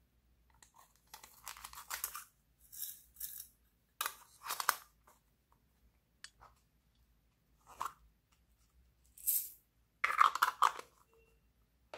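Crisp crackling and rattling as small plastic toy containers are handled, opened and emptied, with beads and glitter tipped out of them. It comes in about six short, irregular bursts, and the loudest is near the end.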